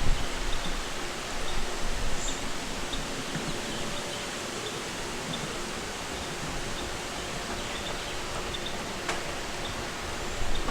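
Steady outdoor hiss with faint, short bird chirps repeating here and there. A low rumble of wind on the microphone dies away in the first second.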